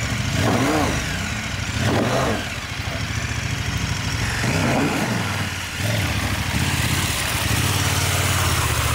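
Big twin-cylinder adventure motorcycle engine pulling through deep mud, its revs rising and falling in short bursts of throttle.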